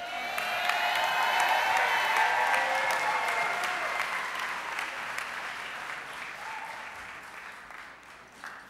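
Audience applauding, swelling quickly and then slowly dying away.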